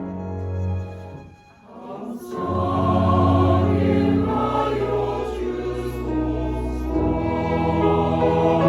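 Church choir singing in harmony. The sound drops away briefly about a second and a half in, then the choir comes back in on long held chords.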